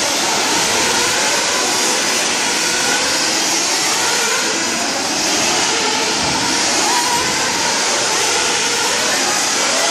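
Several nitro RC buggies racing at once, their small two-stroke glow engines whining at high revs. The overlapping pitches keep rising and falling as the cars accelerate and back off.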